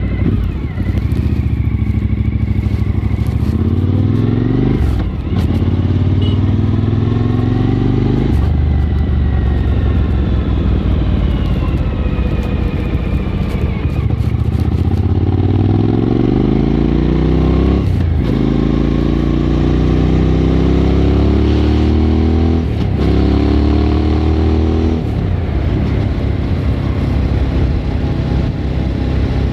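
Suzuki V-Strom 1000 V-twin with a Remus aftermarket exhaust, ridden hard and accelerating up through the gears. The engine note climbs steadily, then drops sharply at each upshift, about five times. The note steadies near the end.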